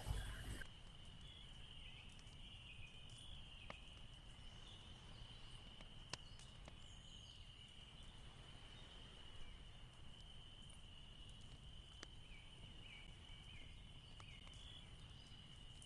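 Near silence: room tone with a faint, steady, high-pitched whine and a few faint clicks.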